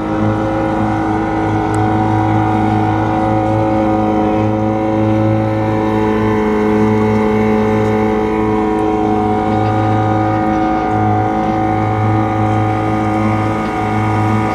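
Motor vehicle engine running at a steady speed under load, its pitch nearly constant throughout, as it tows a vehicle stuck in swamp mud.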